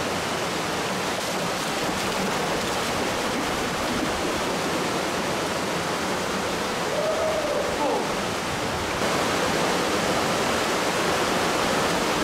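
Mill Creek Falls, a small desert-canyon waterfall, pouring into its pool with a steady rush of water that grows a little louder about nine seconds in.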